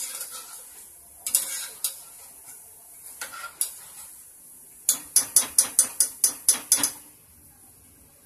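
Stainless wire-mesh skimmer and fork scraping and clinking against a metal kadhai as fried moong dal fritters are lifted out of the hot oil, with a faint sizzle underneath. About five seconds in comes a quick run of about ten sharp metal taps, some five a second.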